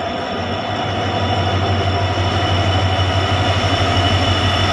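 Diesel locomotive hauling an express passenger train into the platform, its engine running with a deep steady throb that grows gradually louder as it draws alongside.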